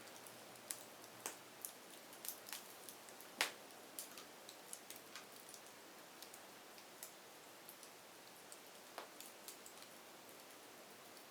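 Burning firewood crackling, with irregular sharp pops and snaps over a faint steady hiss, one louder pop about a third of the way in.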